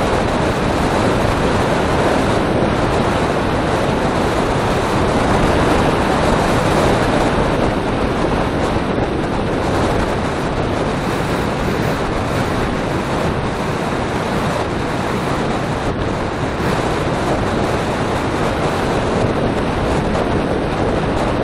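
Loud, steady wind rushing over the microphone of a camera on a bicycle descending at about 70 km/h.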